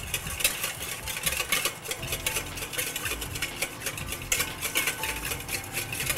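Wire whisk beating in a stainless steel mixing bowl: a rapid, steady run of metal clicks and scrapes. Oil is being drizzled in slowly as it whisks, emulsifying a vinaigrette.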